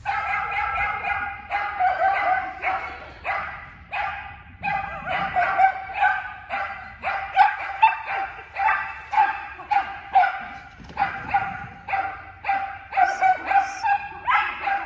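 Small dog barking over and over, high-pitched and rapid, about two barks a second, while running an agility course in a large hall.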